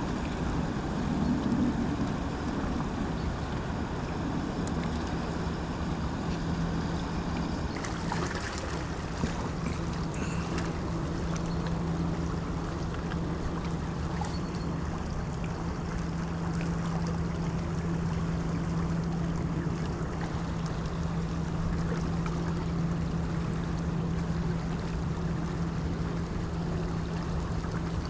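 Steady low drone of a passing river vessel's engine over a constant wash of wind and water.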